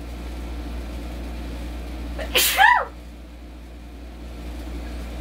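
A woman sneezes once, about two seconds in: a sharp, noisy burst with a short voiced tail.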